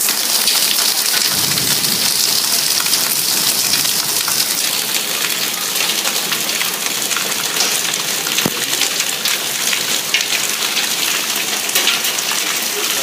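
Hailstorm: a steady, loud rush of heavy rain, dotted all through with many sharp clicks of hailstones striking hard surfaces.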